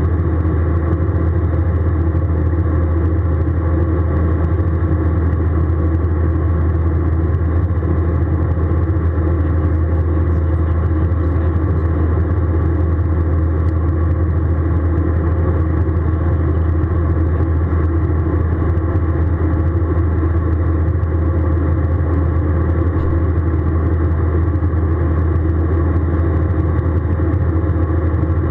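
Airbus A320 airliner heard from inside the passenger cabin in flight: a steady, even drone of engine and airflow noise with a strong low hum, unchanging throughout.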